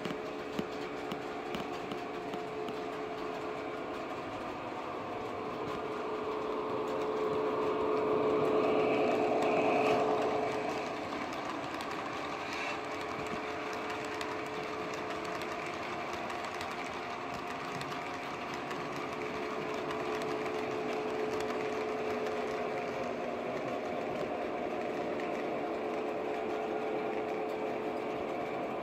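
OO gauge model trains running on the layout: small electric motors whirring with a steady whine, with the wheels running on the rails. The sound grows louder for a few seconds about a third of the way through as a train passes close.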